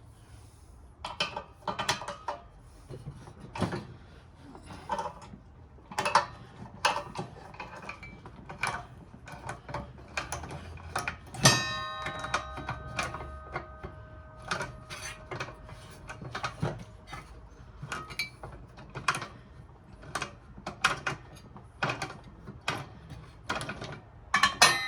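Ratchet wrench clicking in repeated short strokes as a bolt is loosened, with a single ringing metal clang about halfway through.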